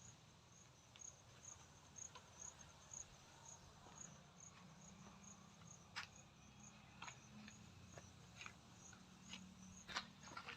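A single cricket chirping faintly and steadily, about two short high chirps a second, with a few soft clicks in between.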